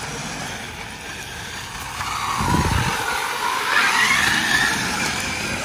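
Traxxas X-Maxx RC monster truck's brushless motor and drivetrain whining under throttle, powered by a Hobbywing MAX6 speed controller. It gets louder about two seconds in, and the whine rises in pitch and then eases off.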